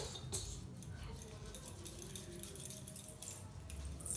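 A few faint light clinks, like glass bangles knocking together on hands massaging a child's leg, over a low room hum.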